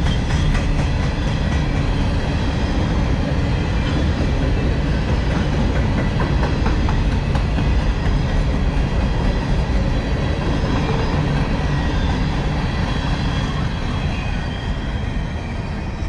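Empty coal hopper cars of a long freight train rolling past: a steady rumble of steel wheels on rail with rhythmic clicking over rail joints, fading over the last few seconds as the end of the train passes.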